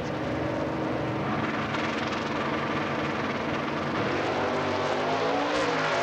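Two stock-class V8 drag cars running at the starting line, then launching about four to five seconds in, the engine pitch rising as they accelerate away down the strip.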